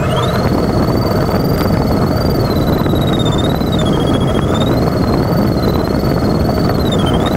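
Steady rush of airflow in the cockpit of an LS4B glider in flight, with an electronic variometer's continuous tone that wavers slowly up and down in pitch, rising sharply right at the start.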